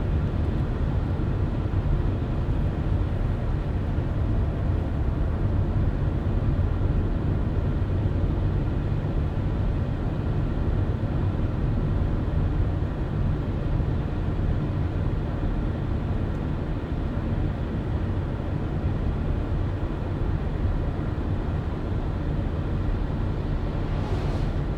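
Car driving at a steady speed: a constant low engine and road rumble with tyre noise, and a brief rise in hiss near the end.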